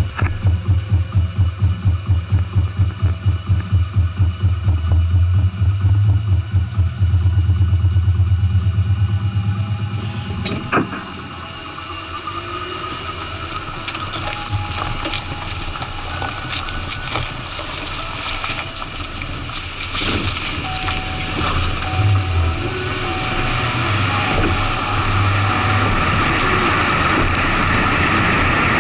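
Truck engine idling with a low pulsing throb, about four to five beats a second. A click comes about eleven seconds in, then the truck drives off and road and wind noise build steadily.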